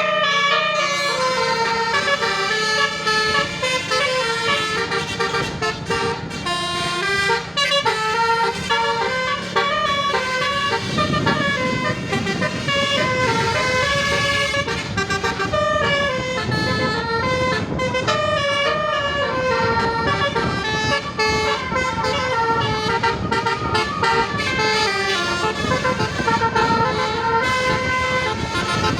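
Basuri multi-tone "telolet" bus horn playing a tune of quick, stepped notes. Under it runs a steady low hum that turns into a rougher low rumble about eleven seconds in.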